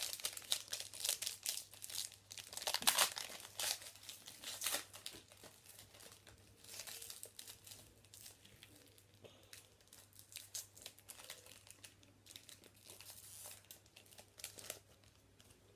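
A trading card pack's wrapper being torn open and crinkled, with dense sharp crackles for the first few seconds, then sparser, fainter rustling as it is handled.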